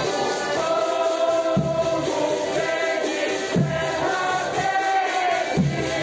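Congado band singing in chorus to accordion and drums, with a deep drum stroke about every two seconds.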